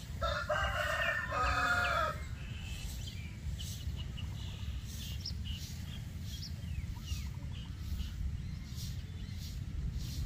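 A rooster crows once just after the start, one drawn-out call of about two seconds. Small birds chirp afterwards over a steady low rumble.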